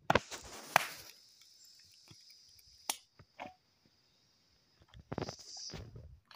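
Large knife chopping raw chicken on a wooden block: a few sharp knocks, the loudest about a second in, and a scraping stretch near the end. A steady high insect drone runs behind it.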